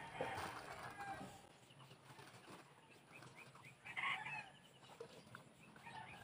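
Faint farmyard sounds: chickens calling, with a louder call about four seconds in, and small birds chirping briefly here and there.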